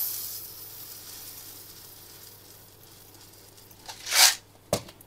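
Whole barley grains poured from a glass jar into a small cup: a grainy rustling hiss that tails off over about three seconds, then a second short pour about four seconds in, and a light click near the end.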